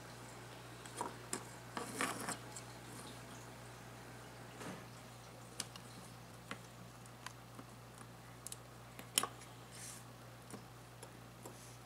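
Faint scattered clicks and light rustling of jumper wires and components being pushed into a plastic solderless breadboard and handled, busiest about two seconds in, over a low steady hum.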